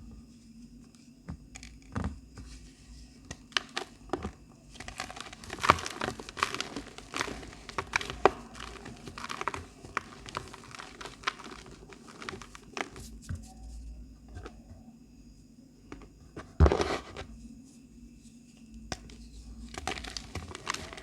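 Black glittery reformed chalk being crushed by hand: a run of soft crunches and crackles, sparse at first, then dense, with one louder crunch past the three-quarter mark.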